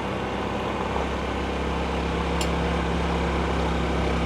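Honda CT125's single-cylinder four-stroke engine running steadily under way, with wind and road noise. A short tick about two and a half seconds in.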